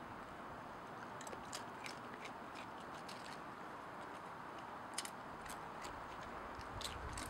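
A raccoon crunching potato chips: irregular crisp crackles, a few closely spaced clicks at a time, the sharpest about five seconds in, over a steady background hiss.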